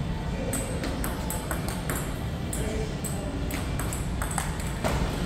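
Table tennis rally: the ball is struck by rubber-faced bats and bounces on the table in quick, sharp clicks, about three a second, with a ring in the large hall.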